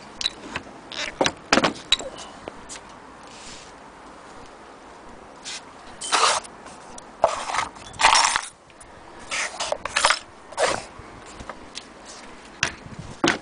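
Hands handling an antique cast-iron hand-crank sewing machine on its wooden base: irregular clicks, knocks and short scraping rubs, with no steady cranking rhythm.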